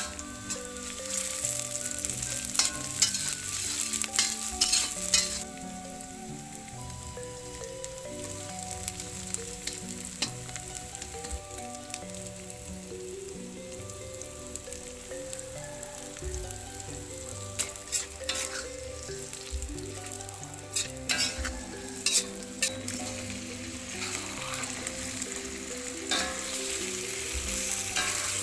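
Sliced shallots, garlic, chili, lemongrass and ginger sizzling in hot oil in a metal wok while the aromatics are sautéed. A metal spatula scrapes and stirs against the pan in two spells, about a second in and again from about seventeen seconds.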